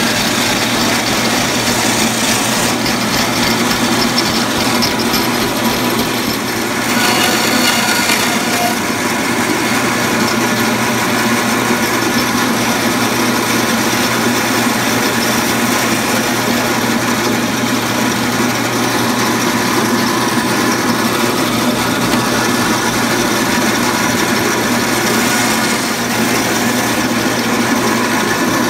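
Guide Gear meat band saw running steadily, its electric motor humming as the blade cuts steaks from a deer ham. The sound turns harsher for a couple of seconds about seven seconds in.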